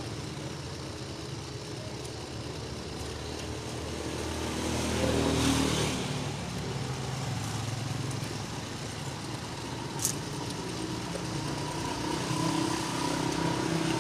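Road traffic going by close at hand, with one vehicle passing about five seconds in, growing louder and then fading. A single sharp click about ten seconds in.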